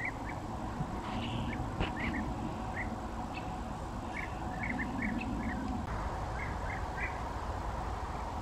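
European bee-eaters giving short chirping calls, scattered and in quick runs of several, over a steady low rumble.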